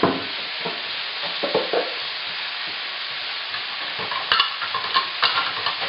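Thinly sliced chicken frying in hot olive oil in a skillet, a steady sizzle. A few light knocks and clicks come over it, most of them about four to five seconds in.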